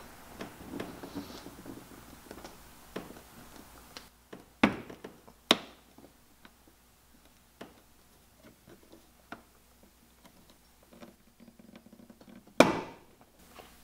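Plastic trim pry tool levering a plastic retaining clip out of the top edge of a C7 Corvette front bumper: scattered faint clicks and taps, two sharp clicks around five seconds in, and a louder brief snap near the end as the clip releases.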